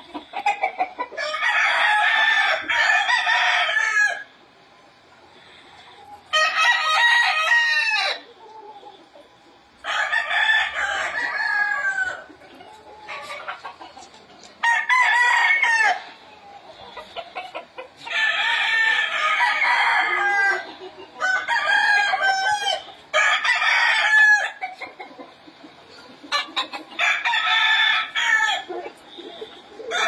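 Gamecocks crowing one after another: about eight loud crows, each lasting one to three seconds, with short quieter gaps between them.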